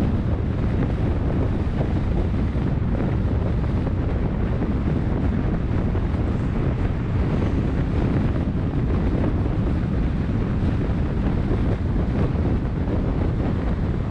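Steady wind buffeting the microphone: a constant low rumbling noise with no distinct events.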